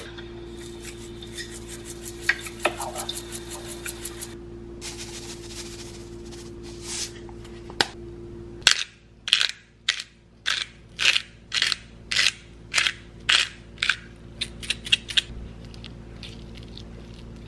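A McCormick black peppercorn grinder twisted to grind pepper, a regular run of about a dozen loud crunching grinds at roughly two a second. It follows a steady hum with scattered light clicks, and is followed near the end by a fork scraping through mashed avocado on a plate.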